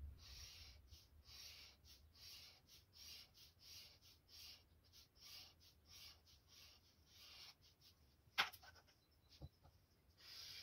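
Felt-tip marker rubbing back and forth on paper in short scratchy strokes, about two a second, while colouring in a shape; faint. About eight seconds in, a single sharp click, followed by a soft knock and then a few more marker strokes.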